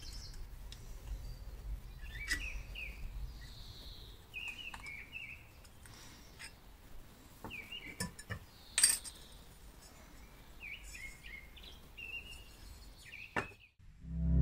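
Light metal clinks and taps as the rusty steel casing and small parts of a 1940s Zephyr hair drier are handled during disassembly, the sharpest clink about nine seconds in. Small birds chirp on and off in the background, and the sound cuts off just before the end.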